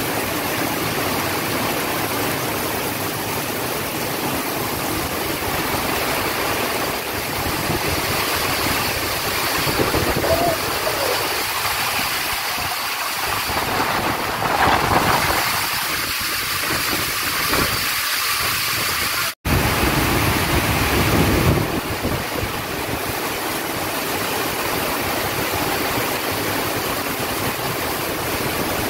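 Heavy wind-driven rain pouring down, a steady dense hiss that swells briefly twice and cuts out for an instant about two-thirds of the way through.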